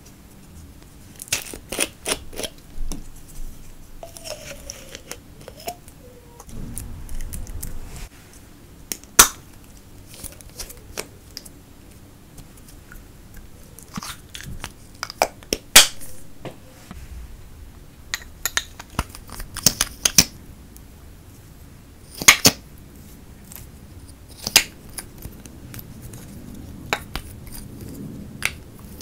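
Makeup containers handled and opened: irregular sharp clicks and taps of plastic and metal caps and tubes, scattered and unevenly spaced.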